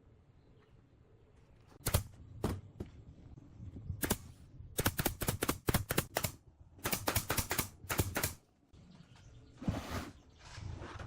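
Quick runs of sharp clicks, several a second, in bursts with short pauses between them, starting about two seconds in and stopping near the end.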